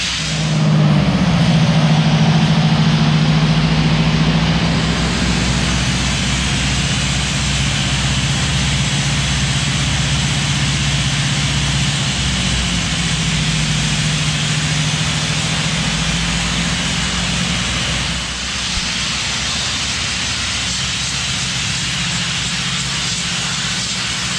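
Vapor blasting rig running on a concrete floor: a loud, steady hiss of high-pressure air, water and abrasive. Under it is a low machine hum that swells about a second in and drops away about 18 seconds in.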